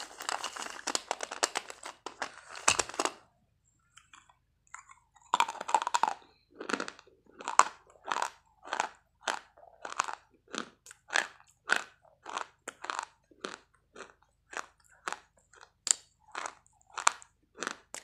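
Close-up crunching of hard, chalky white pieces being bitten and chewed: a dense burst of crunching for the first three seconds, then after a short pause steady chewing crunches, about one and a half a second.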